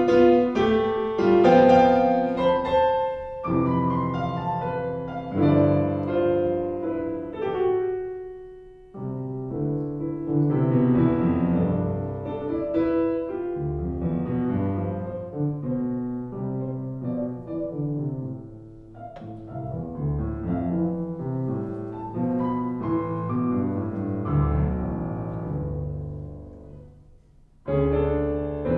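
Steinway grand piano playing a classical piano sonata: dense chords and runs, with the sound dying away about eight to nine seconds in and again near the end before loud chords come back in.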